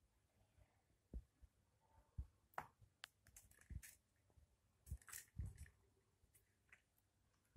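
Faint, scattered taps and clicks of kittens batting a small ball across a wooden parquet floor, with quiet room tone between them.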